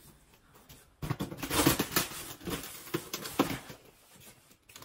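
Cardboard box being handled and opened by hand: a run of rustling, scraping and crinkling of cardboard and packing, starting about a second in and fading out near the end.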